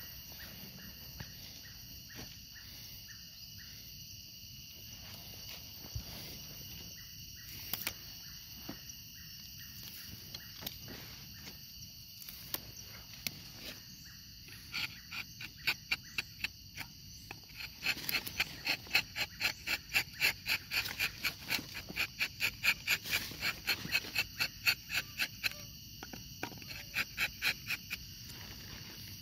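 Steady high-pitched buzzing of insects, joined about halfway through by a rapid, regular chirping call, about four pulses a second, that runs for roughly ten seconds and then breaks off.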